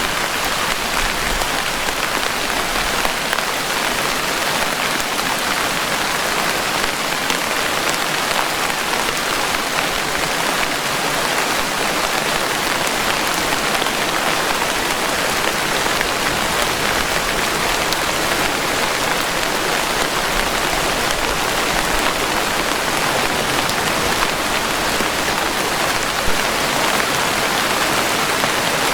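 Steady rain falling, an even hiss of many drops with no break or change.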